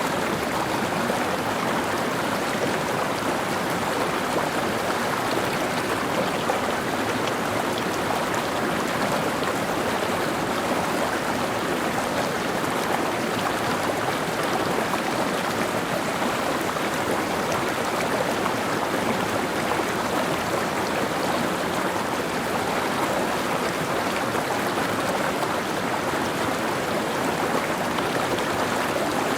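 Mountain stream running over rocks: a steady, even rush and babble of flowing water.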